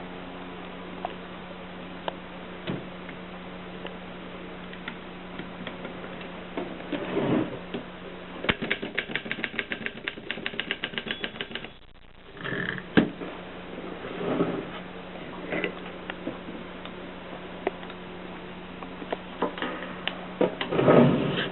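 Mercedes 6 typewriter in use: scattered single clicks, then a fast, even run of mechanical strikes lasting about three seconds midway, with a few short clattering bursts between, over a steady low hum.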